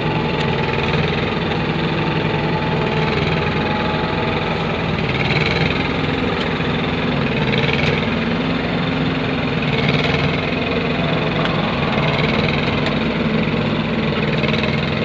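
Engine of a concrete kerb-forming machine running steadily at an even speed.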